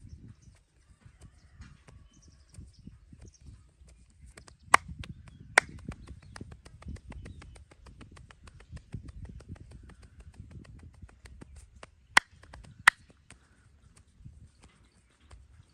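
Hands-on massage: rubbing and quick light tapping on the body, with two pairs of sharp, loud cracks or snaps, the kind of joint-cracking or finger-snapping flourish this massage style is known for.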